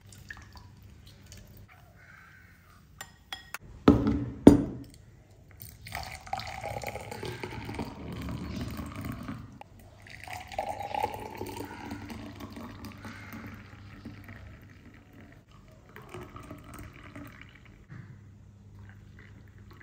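Green juice poured from a glass jug into cut-glass tumblers, the stream splashing and filling the glass in two pours of a few seconds each. Just before the pouring, two loud knocks about four seconds in.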